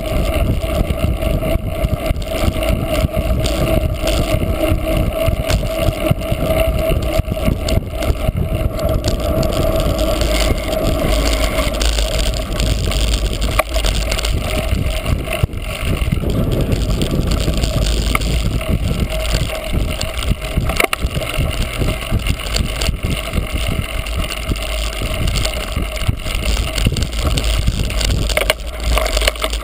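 Cyclocross bicycle being ridden hard over rough race ground: a steady rush of tyre and drivetrain rattle mixed with wind buffeting the on-bike microphone. It grows rougher and more clattery after about ten seconds.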